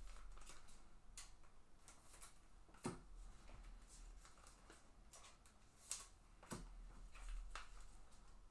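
Faint handling noises of trading cards: light clicks and taps as cards are slid and set down on a table, with sharper taps about three seconds in and about six seconds in.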